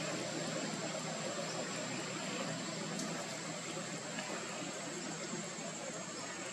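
Steady background noise: an even hiss with a constant thin, high-pitched whine over it.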